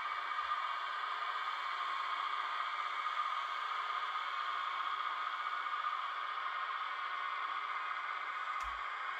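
Steady electric whirring of a 1/16-scale RC Yanmar B37V hydraulic mini excavator's motors and hydraulic pump as it tracks up onto a tilting trailer bed. A single sharp click with a low thump comes near the end.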